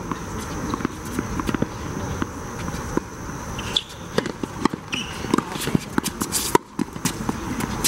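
Tennis rally on a hard court: sharp pops of racket strikes and ball bounces, thickest in the second half, over footsteps and shoe scuffs on the court surface.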